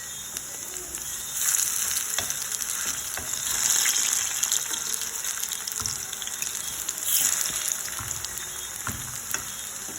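Plantain slices frying in hot oil in a pot: a steady sizzle with crackles and spits, swelling louder a couple of times as the slices are turned.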